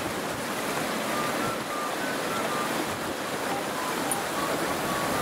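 Fast, shallow river rushing over rocks: a steady hiss of flowing water, with a run of faint, short high notes at changing pitch over it.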